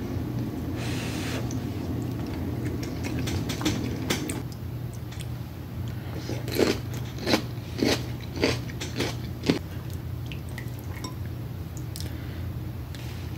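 Close-miked mouth sounds of a person eating a saucy seafood boil: chewing and wet lip smacks, with a run of about six sharp smacks in the middle, roughly two a second. A steady low hum runs underneath.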